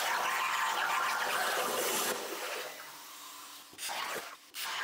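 BestArc BTC500XP plasma cutter's torch on a CNC table cutting through thick steel plate: a steady hissing rush of compressed air and arc. It is louder for the first two seconds, then quieter, with a few short drop-outs near the end. The cut is running at a reduced feed rate, slowed because the sparks had been shooting back up, a sign of travelling too fast.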